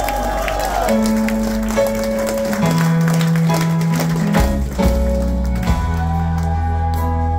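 Live alt-country rock band playing an instrumental passage: held bass notes changing every second or so under electric and acoustic guitars, keyboard and drums.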